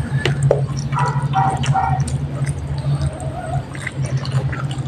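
Instant noodles being slurped and chewed, with wet mouth sounds and small clicks of the spoon and fork, over a steady low hum.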